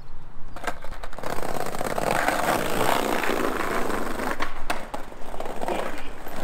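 Skateboard wheels rolling over brick paving stones: a rough, steady rattle that starts about a second in, with a few sharp clacks of the board.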